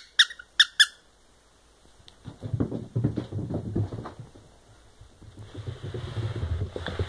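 A squeaky toy ball is squeezed by hand, giving several short, sharp squeaks in quick succession in the first second. Then comes a softer scuffling patter of a chihuahua's paws on carpet as it runs after the ball and back.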